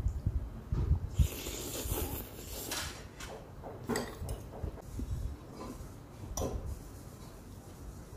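Eating noodles close to the microphone: a slurp of noodles for a second or two, then chewing, with chopsticks and a fork clicking against the plate a few times.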